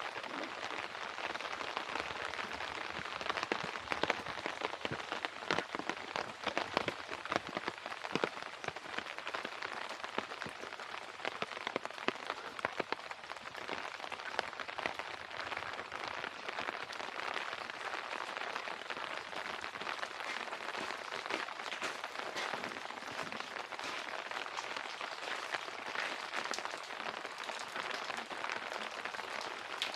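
Rain falling steadily: a continuous hiss strewn with many small, irregular taps of drops.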